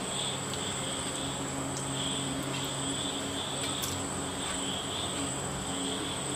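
Insects calling steadily in the background: a continuous high trill, with a lower chirping band that pulses about once a second, over a low steady hum. A few faint clicks come as fish pieces are set into the clay pot.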